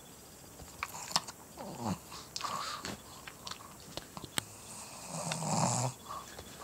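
Small dog breathing noisily and sniffing close to the microphone, with short clicks throughout and a longer, louder breath about five and a half seconds in.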